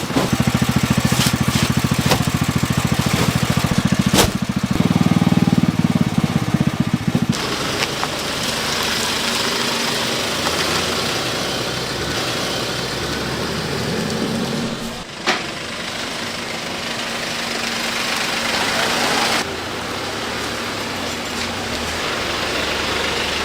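An engine runs with a fast, steady beat for the first several seconds. After abrupt cuts it gives way to a steady rushing noise over a fainter mechanical hum.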